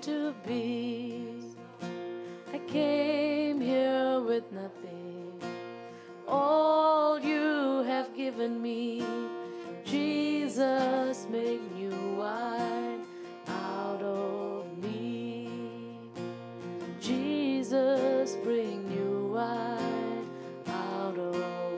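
A woman singing a slow worship song with vibrato, accompanied by a strummed acoustic guitar.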